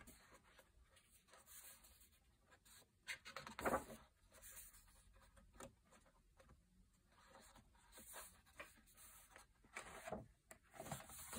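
Faint rustling and swishing of thick coloring-book pages being handled and turned by hand, with the loudest swish a little under four seconds in and more near the end.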